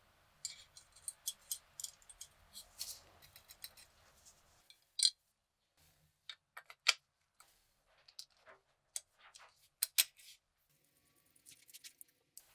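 Small metal parts of an M1 bayonet's handle clicking and tapping together as the latch spring and grip panels are fitted back on. A quick run of sharp little clicks at first, then sparser, louder ones, and a few faint ones near the end.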